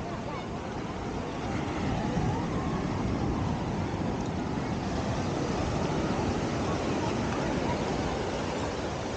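Beach ambience: a steady rush of surf washing in over the shallows, with the faint babble of many voices from the crowd on the beach.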